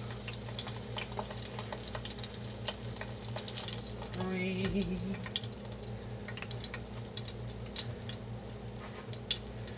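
Hot oil crackling and popping as hot dogs deep-fry in a pot, scattered sharp pops over a steady low hum.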